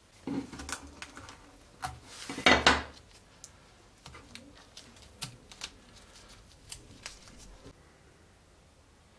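Small clicks and scrapes of a metal pin and hardened resin being handled, with one louder crackling scrape about two and a half seconds in, then scattered light ticks.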